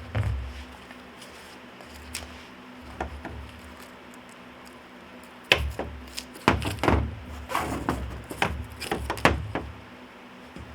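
Ratchet strap being worked by hand: the ratchet mechanism and its metal hardware make a few scattered clicks, then a close run of irregular sharp clicks and knocks through the second half.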